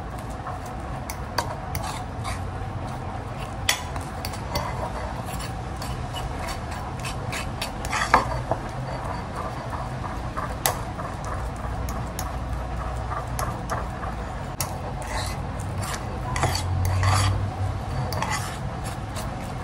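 A metal fork stirring and mashing a stiff banana and oat-flour dough on a plate. Repeated scrapes and clinks sound as the fork hits the plate.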